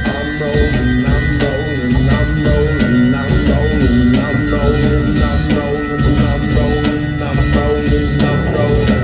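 Live rock band playing, with drum kit and guitar over a steady beat.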